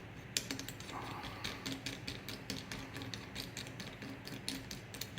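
A hand tool being tightened down on a pistol slide during sight installation, giving a run of quick ratcheting clicks, irregular and at times several a second.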